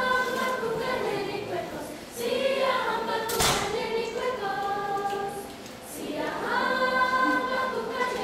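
Middle-school chorus of mixed young voices singing held notes in three phrases, with short breaths between them about two and six seconds in. A single sharp click sounds about three and a half seconds in.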